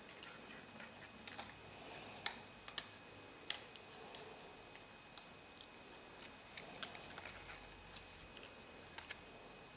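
Irregular light clicks and taps of small tools and iPhone 4 parts being handled during reassembly, with the sharpest click about two seconds in and a denser run of small ticks and rustling around seven seconds in.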